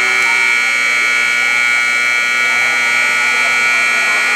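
Steady, loud electronic whine made of several high tones held together, brightest around a high shrill pitch, unchanging throughout: an audio fault in the recording's sound, not a sound from the game.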